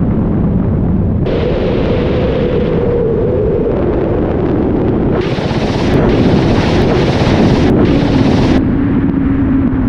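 Ka-52 attack helicopter's rotors and turbine engines droning steadily, heard on board. From about five seconds in, a salvo of rockets fires from the helicopter: a loud rushing hiss lasting about three seconds, with a few brief breaks.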